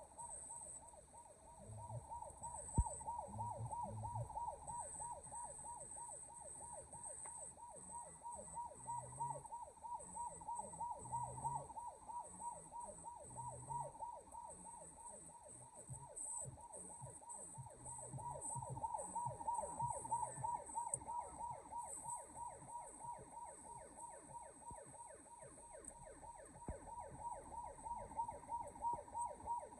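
A siren-like electronic tone sweeping down quickly and repeating about three or four times a second.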